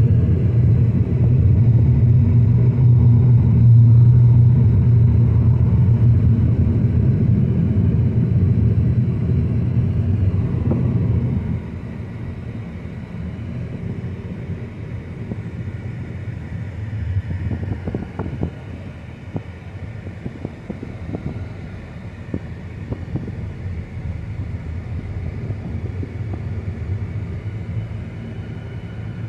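Car cabin noise while driving: a steady low rumble of tyres and engine that drops off about eleven seconds in as the car slows for a stop sign, leaving a quieter hum with a few faint clicks.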